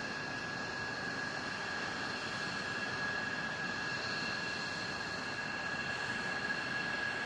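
Steady turbine whine over an even rush of air from F-35A Lightning II fighters running on the flight line, with several high tones held level throughout.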